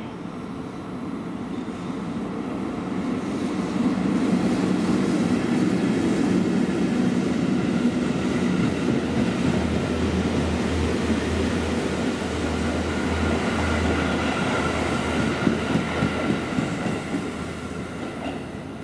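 An EF65 electric locomotive hauling a Seibu 101 series train set runs through the station without stopping. The running noise builds over the first few seconds and stays loud as the cars go by. Near the end comes a quick run of wheel clacks over the rail joints, then it fades as the train moves away.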